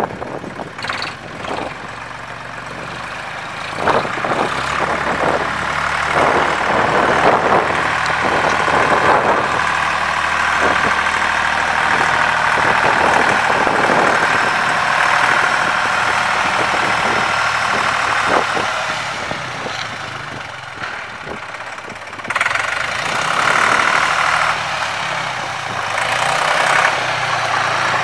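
Deutz-Allis 6240 tractor's air-cooled three-cylinder Deutz diesel running steadily at low speed as the tractor moves, with scattered clicks and knocks in the first half. The sound gets suddenly louder about 22 seconds in.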